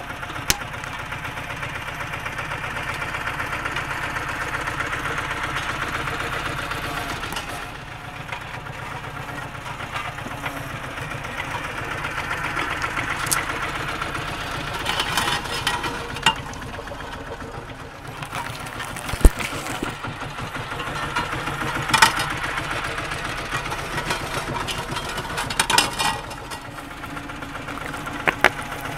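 A small tandem-drum road roller's engine running steadily while the steel drums roll over and crush small objects, giving a scatter of sharp cracks and crackling pops over the engine, the loudest about two-thirds of the way through.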